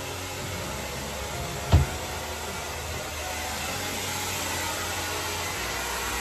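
Steady rush of a small electric blower running, with one dull thump about two seconds in.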